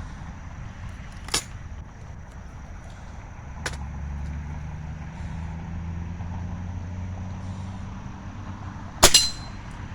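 Air rifle firing a single pellet about nine seconds in: one sharp shot with a brief metallic ring after it. Two lighter clicks come earlier as the gun is handled, and a low rumble sits in the background through the middle.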